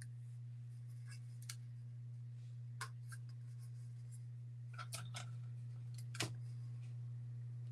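Tape and sublimation paper being handled as they are wrapped tightly around a tumbler: scattered light clicks and crinkles, busier from about five seconds in, over a steady low hum.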